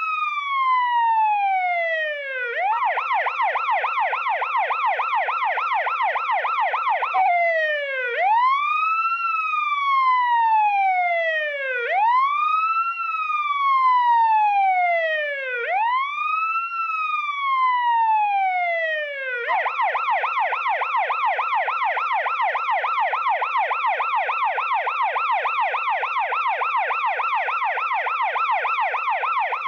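Electronic emergency-vehicle siren switching between a slow wail, which rises and falls about every four seconds, and a rapid yelp. It goes into the yelp about three seconds in, returns to the wail about seven seconds in, and switches back to the yelp about two-thirds of the way through, where it stays.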